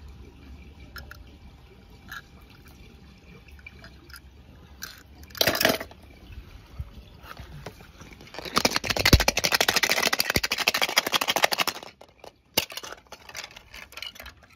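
Water splashing and dripping as toy cars fall into it: scattered drips, a short splash about five seconds in, then a few seconds of rapid, loud splashing.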